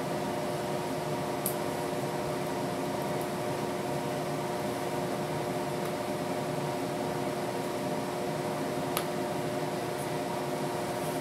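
Steady hum of a running household appliance, holding several constant tones, with two faint clicks, one about a second and a half in and one later on.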